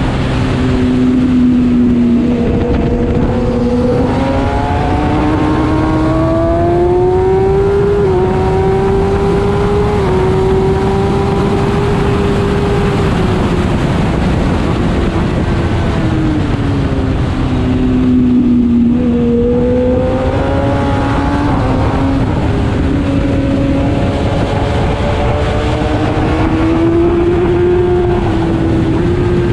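Kawasaki ZX-10R inline-four sportbike engine heard from onboard at track speed, its note climbing under acceleration. It drops in pitch twice, early on and again about two-thirds through, then climbs again. A steady rush of wind runs underneath.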